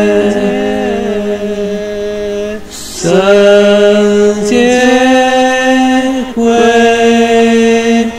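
Worship song: a singer holds long, drawn-out sung notes, with a brief break about three seconds in.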